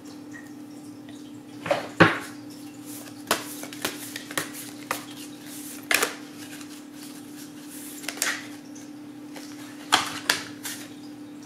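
Tarot cards being handled and laid down: scattered sharp clicks and taps, the loudest about two, six and ten seconds in, over a steady low hum.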